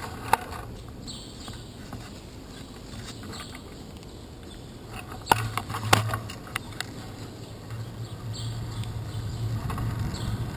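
Bicycle rolling over wet pavement, heard from a handlebar-mounted camera: a steady low hum and road noise, with sharp knocks from jolts to the bike and camera about a third of a second in and twice around five to six seconds in. The road and tyre noise grows louder toward the end.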